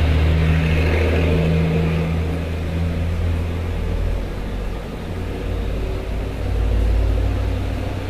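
City road traffic: a motor vehicle's engine running close by, a steady low hum over a rumble, louder in the first couple of seconds and again near the end.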